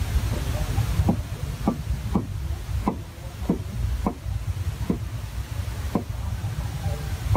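Wood fire burning in a village cookstove, giving about nine short pops at uneven gaps of half a second to a second over a steady low rumble.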